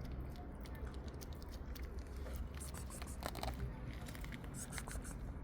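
Stray cats eating, with small irregular crunches and clicks of chewing over a low steady rumble.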